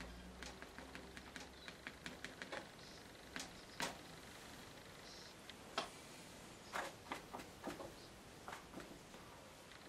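Sponge dabbing acrylic paint onto a painting: a run of soft, irregular taps and pats, with a few louder ones in the middle.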